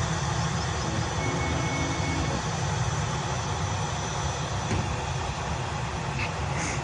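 Steady low rumble of a jet airliner's engines at the airport, with an even wash of noise above it.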